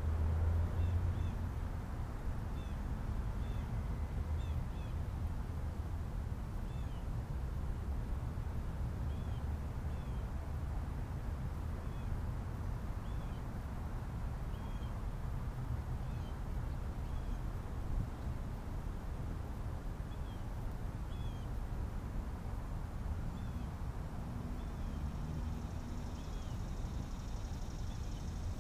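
Small bird chirping in short high calls every second or two over a low rumble of wind on the microphone. A faint high hiss joins near the end.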